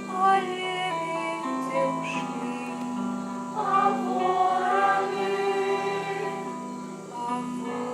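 Music: a choir singing slow, held notes over a steady low accompaniment.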